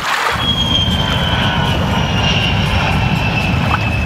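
Aircraft-like engine noise: a steady rushing rumble with a high whine that slowly falls in pitch.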